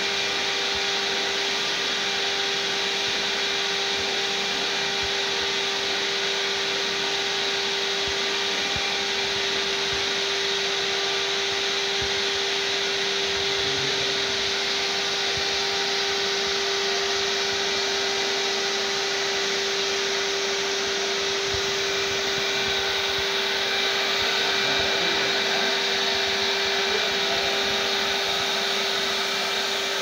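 Canister vacuum cleaner running steadily with a constant hum, its hose and floor tool being worked over a carpet.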